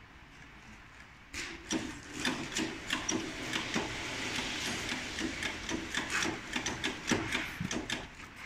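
Braided rope being wound onto a spinning winding disc, the rope rubbing and rasping as it runs through a gloved hand, with many quick irregular ticks. It starts about a second and a half in.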